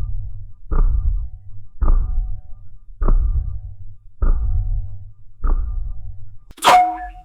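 Hot water pipes knocking as they expand with heat: a regular series of dull knocks about one every second and a bit, each trailing a low rumble, then a sharper, brighter metallic knock that rings on briefly near the end.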